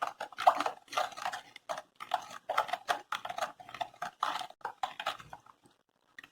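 A thick liquid batter of milk and granulated tapioca being stirred by hand in a large bowl: wet sloshing and scraping strokes, about two a second, that stop about five and a half seconds in.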